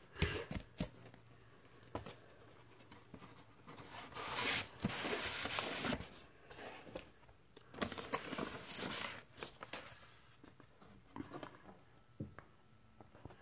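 Handling of a vinyl LP in its cardboard jacket, shrink wrap and paper inner sleeve as the record is pulled out: light clicks near the start, then two stretches of rustling and crinkling, and a few soft taps near the end.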